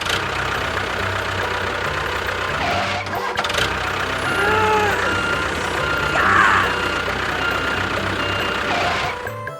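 A vehicle engine running steadily, with a few short gliding tones over it.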